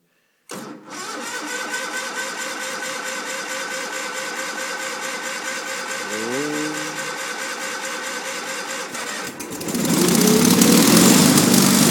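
Old Cub Cadet lawn tractor engine being cold-started on choke. The starter cranks steadily for about nine seconds, then the engine catches and runs, much louder.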